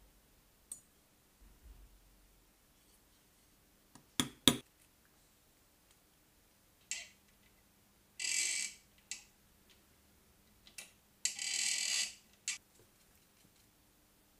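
Sparse clicks and knocks of small brass workpieces being handled, the loudest a pair about four seconds in. Two short hissing bursts follow, one about eight seconds in and one about eleven, as a small drill bit cuts into a brass flat bar.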